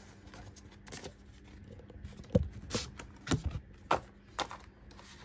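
A folded card folder and papers being handled and opened by hand: a string of short rustles, taps and clicks, the sharpest about two and a half and four seconds in.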